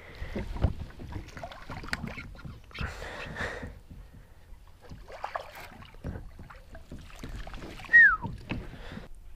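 Irregular splashing and small knocks from a kayak on the water, with a short falling squeak about eight seconds in.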